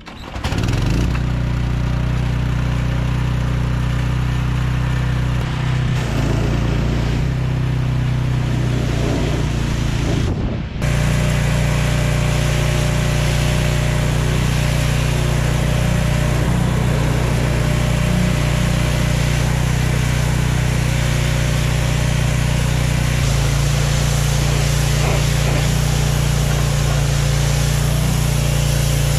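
Small gasoline pressure washer engine running steadily at full throttle, with the hiss of its high-pressure water jet spraying against the excavator's steel panels. The sound comes in within the first second and dips briefly about ten seconds in.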